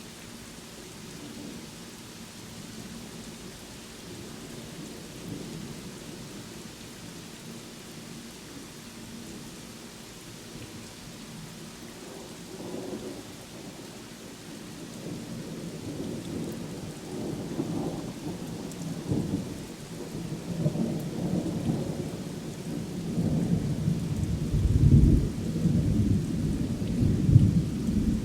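Steady rain hissing, with rolling thunder that starts faintly about halfway through and grows into several loud rumbles near the end.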